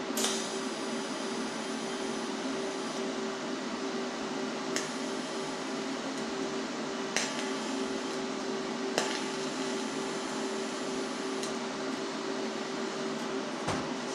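A steady machine hum with a mid-pitched tone, broken by about six sharp metallic clicks at uneven intervals, a few of which ring briefly.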